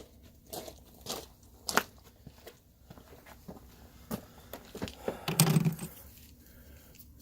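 Irregular clicks, taps and scrapes of something being handled, with a heavier knock about five and a half seconds in.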